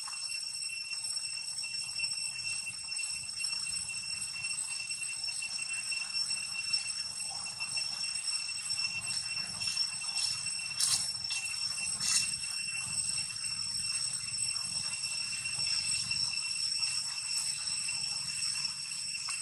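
Steady high-pitched insect drone ringing in several tones, over a low rumble, with two brief clicks about eleven and twelve seconds in.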